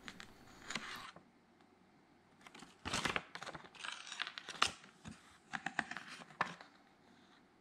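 Paper instruction leaflet rustling and crinkling as it is handled and unfolded, in scattered short rustles after a near-silent pause of about a second and a half.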